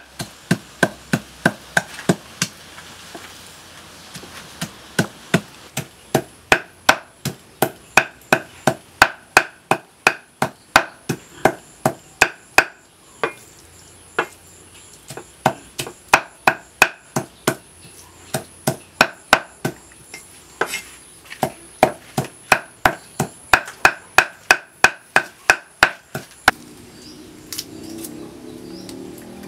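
Meat cleaver chopping raw pork on a round wooden chopping block: sharp, steady strikes about two to three a second with a few brief pauses, stopping near the end.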